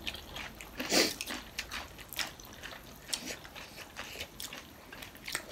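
Close-up slurping and chewing of spicy instant ramen noodles: a string of short wet mouth clicks and smacks, with a louder one about a second in.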